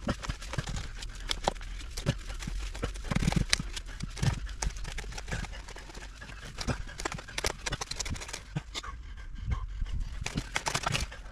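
Orange plastic sewer pipe sections being worked loose and pulled apart in a dirt trench: irregular knocks, clunks and scrapes of plastic against plastic and soil, over a steady low rumble.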